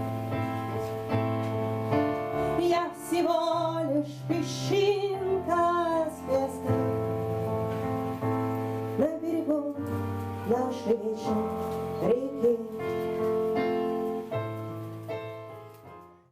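Music: a woman singing a song over a steady instrumental accompaniment, fading out near the end.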